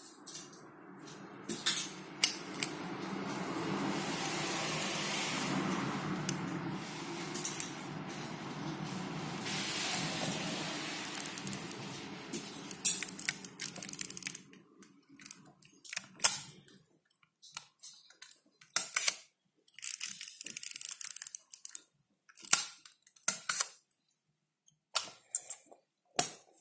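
Ricoh 500 G 35 mm rangefinder being loaded with film by hand: a steady low noise for about the first fourteen seconds. Then a run of sharp clicks and knocks from the camera's mechanism and body as its back is shut.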